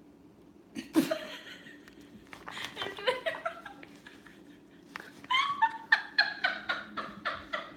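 A woman laughing in two bouts of short, quick pulses, the first starting about a second in with a sharp outburst and the second about five seconds in.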